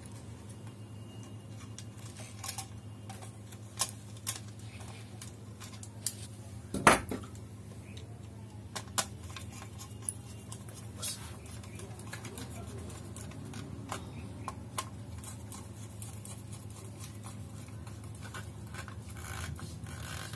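Small scattered clicks and taps of a screwdriver and wires being worked at a plastic switchboard's screw terminals while a phase wire is connected to the switches, with one louder knock about seven seconds in, over a low steady hum.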